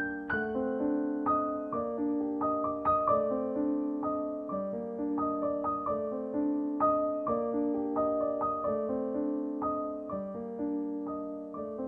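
Piano music: a flowing succession of struck notes and chords.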